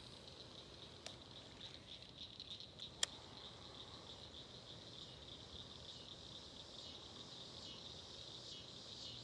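A faint, steady chorus of chirping insects, pulsing rapidly and high-pitched, with a single sharp click about three seconds in.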